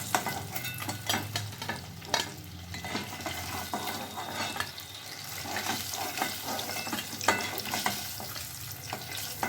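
Cheese balls frying in hot oil: steady sizzling and crackling, with a few sharp clicks scattered through it, the loudest about seven seconds in.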